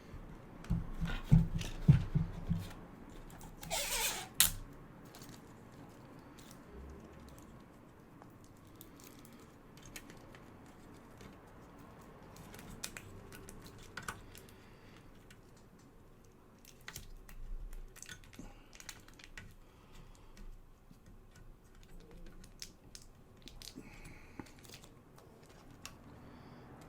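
Scattered light clicks and taps of small tools and parts being handled on an electronics repair bench, with a few louder knocks near the start and a short rustle about four seconds in.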